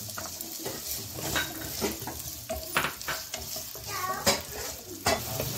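Chopped onions sizzling in hot oil, with the clicks and scrapes of a wooden spatula stirring them in a non-stick pan; a couple of sharper knocks of the spatula near the end.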